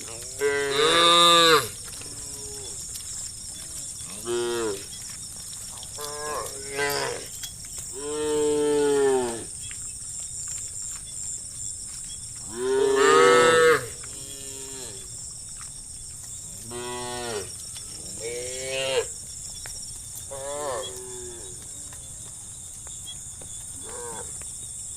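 A herd of cattle mooing: about a dozen separate moos, some short and some drawn out, each rising and falling in pitch, the loudest about a second in and about halfway through.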